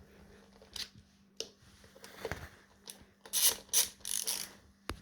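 Ratchet wrench clicking in several short bursts as the wheel-rim screws are tightened, the loudest run coming about three seconds in.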